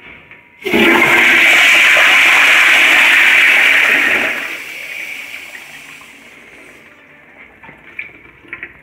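Commercial toilet flushed by its flushometer valve: a sudden loud rush of water about a second in that holds steady for some three seconds, then dies down into a fading trickle. A few faint knocks near the end.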